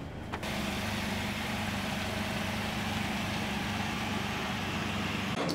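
Car running steadily: an even hum with hiss that sets in about half a second in and cuts off abruptly near the end.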